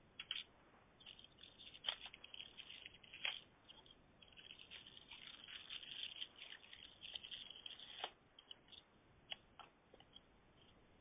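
Faint scattered clicks and crackles heard through a telephone line while the call is on hold, thickest in the middle few seconds and otherwise near silence.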